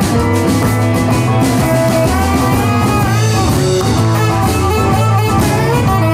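Rock and roll band playing live: guitar, piano, bass and drums.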